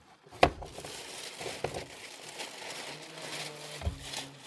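Rustling and crinkling, with one sharp knock about half a second in and a low hum starting about three seconds in.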